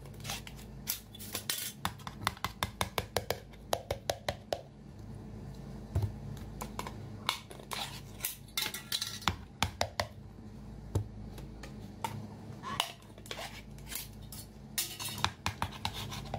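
Glass jar with a metal screw lid being opened, then tipped and shaken to empty cooked shellfish meat in sauce onto a plate: quick runs of sharp clinks, clicks and knocks from the glass, lid and plate, coming in clusters.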